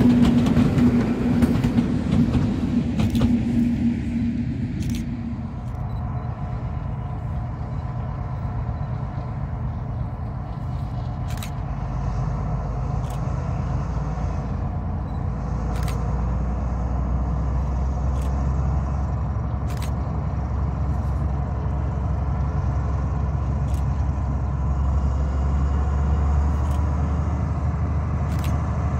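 A diesel train passing close by, its engine running with a steady drone, cut off suddenly about five seconds in. Then the low, steady rumble of a distant Class 43 HST power car's diesel engine, slowly growing louder as the train approaches.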